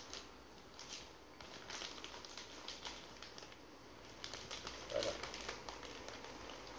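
Clear plastic zip-lock bags holding surfboard fins crinkling and rustling as they are handled, in a string of short crackles, the loudest about five seconds in.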